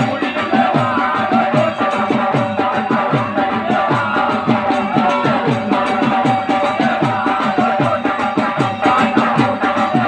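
Gondi Dandar folk dance music played loud over a loudspeaker: a drum beats a quick, steady rhythm, with a jangling rattle and a wavering high melody line over a held tone.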